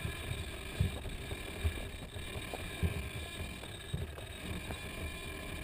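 Handling noise of an RC helicopter being carried on foot, picked up by a camera mounted on its frame: low thuds about once a second as it is jolted with each step, over wind rumble on the microphone.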